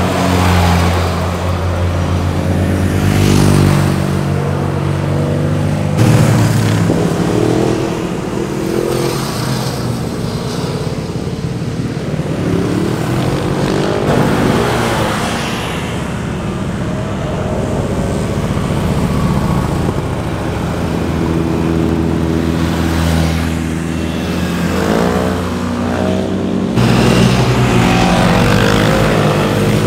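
Motorcycles going past one after another through a bend, engines revving up and dropping away as each one passes. There are several distinct pass-bys, with the pitch sweeping up and then down.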